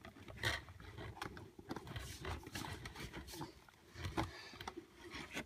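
Clear plastic lid of an ant farm gel habitat being pushed and worked onto its plastic container by hand: faint, irregular clicks, taps and scrapes of plastic on plastic. The lid is not yet seating.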